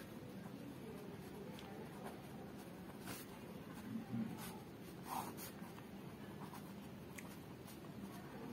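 Pen writing by hand on a sheet of paper: faint scratching strokes, with a couple of louder scrapes about four and five seconds in.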